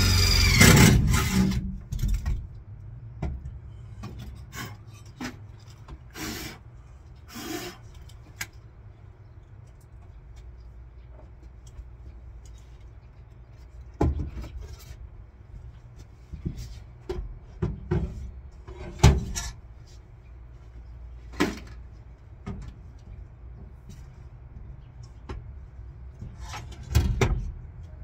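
Scattered knocks, clicks and rattles of tools and metal parts being handled during hand work in a van, over a low steady rumble. The loudest knock comes about two-thirds of the way in, and a cluster of knocks comes near the end.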